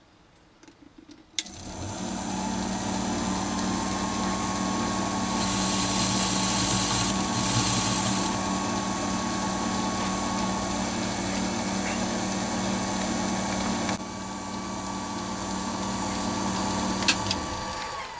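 Small metalworking lathe switched on about a second and a half in, its spindle running steadily at around 300 rpm with a constant high whine. It is switched off and winds down near the end. Partway through, a brief hiss as the turning tool touches the face of the spinning metal billet to mark the rough register diameter.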